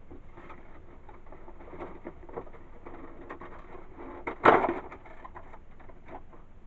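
Cardboard box and packaging being handled and rummaged through: a run of small clicks and rustles, with one louder burst of handling noise about four and a half seconds in.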